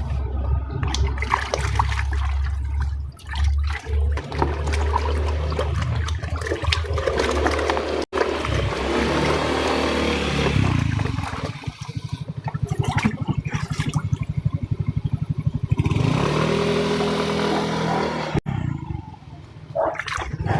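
Water running hard from a tap into a basin, over a loud steady low hum.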